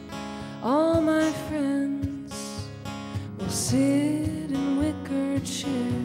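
A woman singing with an acoustic guitar strumming behind her; she holds two long notes, each scooping up into pitch, about a second in and again about three and a half seconds in.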